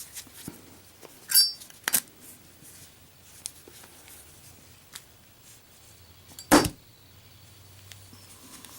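Street-chrome Zippo lighter with a steel insert in a lid drop test: a few metal clicks, the loudest a sharp snap about six and a half seconds in as the lid falls shut under its own weight. An earlier click about a second and a half in rings briefly.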